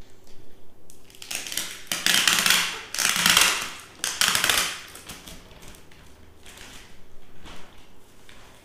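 Clear plastic bag crinkling and rustling as it is pulled off a firewall unit: about four loud rustles between one and five seconds in, then softer crinkling.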